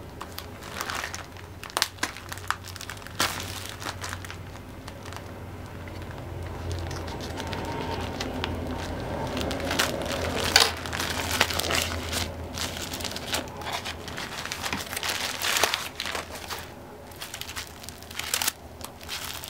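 Plastic courier mailer bag crinkling and rustling as it is handled and cut open with small scissors, with many short sharp snips and clicks. A stiff stack of sticker packs is then drawn out and handled, with a steady low hum underneath.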